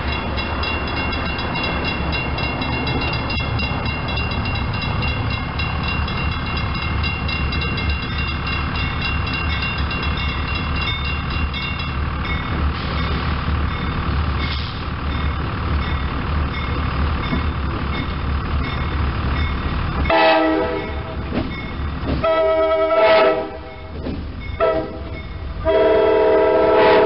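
CSX freight train's diesel locomotives rumbling steadily as they approach. About twenty seconds in, the locomotive's several-note horn sounds the grade-crossing signal: two long blasts, a short one and a long one.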